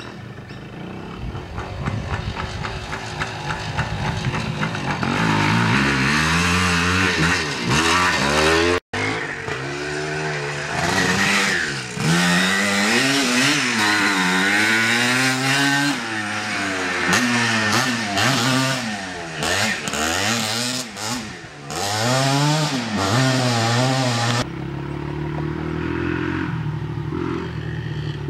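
Vintage enduro motorcycles riding past, their engines revving up and dropping back again and again as the riders work the throttle and change gear. The sound breaks off sharply about nine seconds in and changes again near the end, as one bike gives way to the next.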